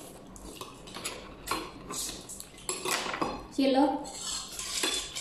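Spoons and forks clinking and scraping on plates and bowls as several people eat, in irregular short clicks.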